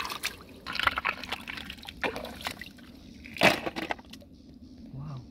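Shallow muddy water splashing and sloshing as hands move through it, with one louder splash about three and a half seconds in.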